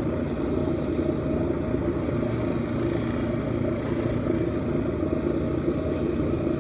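Lapidary grinding wheel running steadily, a constant motor hum and whir with a steady tone, while a stone is polished at 1000 grit.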